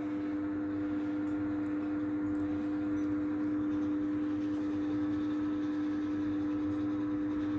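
A steady hum at one low pitch, with a fainter higher tone above it and faint room hiss.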